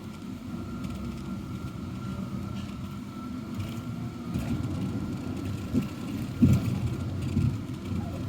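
Low, steady rumble of a running vehicle, with a faint steady whine over it and a couple of short knocks a little past the middle.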